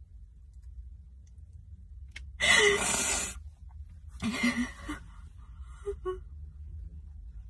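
A woman crying: two loud, breathy sobs about two and a half and four and a half seconds in, then a faint whimper.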